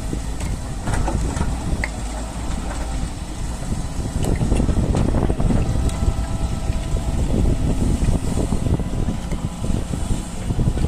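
Doosan DX140 hydraulic excavator's diesel engine running, a steady low rumble, with wind buffeting the microphone.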